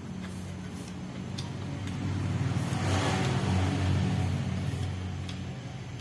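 A motor vehicle's engine passing, swelling to its loudest about three to four seconds in and then fading, over a steady low hum.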